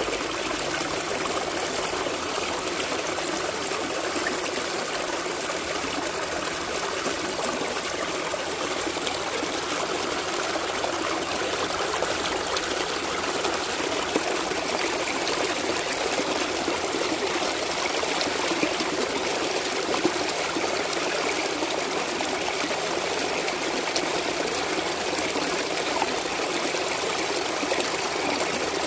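A small stream running over stones, a steady babbling and trickling of water.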